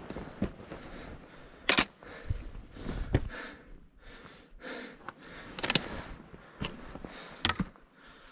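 Trekking pole tips tapping and clicking on rock, with boots stepping on loose stones, in irregular sharp taps about once a second.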